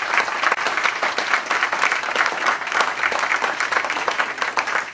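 An audience applauding: many hands clapping at once in a steady, dense patter.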